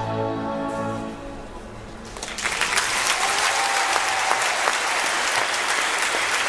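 A marching brass band's held closing chord fades out within the first two seconds, then the audience breaks into sustained applause.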